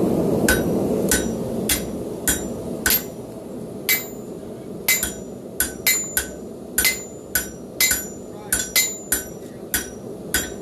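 Blacksmith's hammer forging a hot railroad spike on an anvil: about twenty blows, each with a short metallic ring. The blows are unevenly spaced at first and come quicker in the second half.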